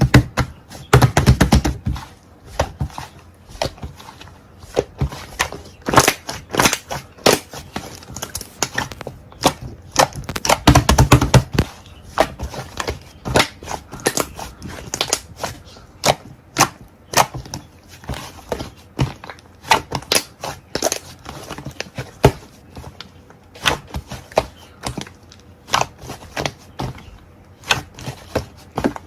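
Sticky whipped-cream-textured slime being worked by hand: irregular sharp clicks, pops and squelches, with denser runs of crackling about a second in and again around ten seconds.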